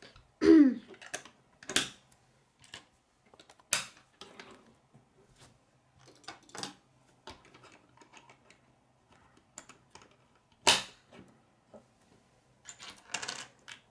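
Plastic K'nex rods and connectors clicking as they snap together, with pieces tapping on a wooden tabletop: irregular sharp clicks, a few much louder than the rest, the loudest about eleven seconds in.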